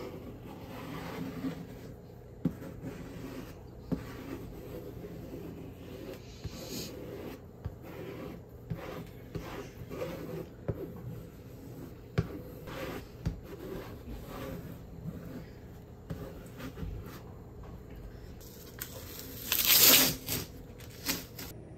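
A small wooden tool scraping and dragging through wet acrylic paint on paper, with light knocks against the board underneath. Near the end a strip of masking tape is peeled off the paper, the loudest sound, a rip of about a second.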